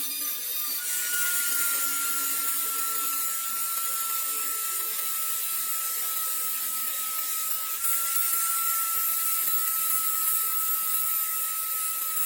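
High-speed power tool running steadily: a high whine that sags slowly in pitch over a hiss, stepping back up about eight seconds in.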